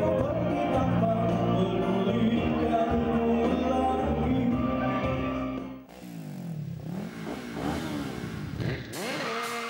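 Music with sustained chords for about six seconds, then it breaks off and a car engine revs, its pitch sweeping up and down again and again.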